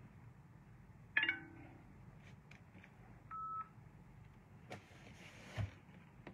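Quiet room with a short high chirp about a second in, then a single steady electronic beep about halfway through, followed by a brief rustle and a soft knock.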